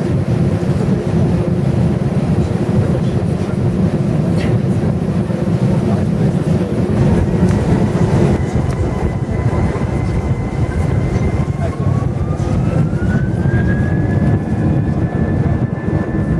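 Cabin noise of a Wizz Air Airbus A320-family jet on the runway: a steady rumble from the engines and wheels. About three-quarters of the way through, a thin engine whine rises in pitch and then holds higher as the engines spool up toward takeoff thrust.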